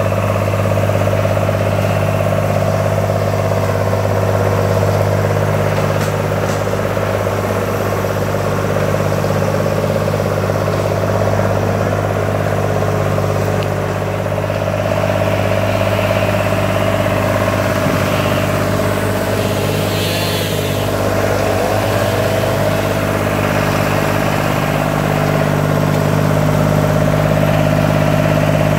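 Long 360 farm tractor's engine running steadily at a constant pitch as it drives through brush, growing a little louder near the end as it comes close.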